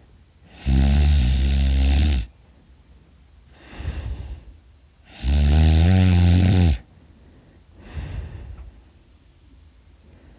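A man snoring very loudly: two long, loud snores about four and a half seconds apart, each followed by a shorter, softer breath.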